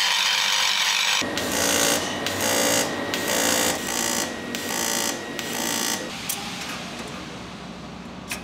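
Handheld grinder running against the metal of a turbo compressor housing. About a second in it gives way to a pulsing mechanical noise that repeats roughly every 0.6 s for several seconds, then fades, with a few light metal clicks near the end.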